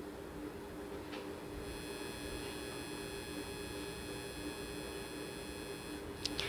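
Low, steady electrical hum with faint hiss, with a faint tick about a second in and two small clicks near the end.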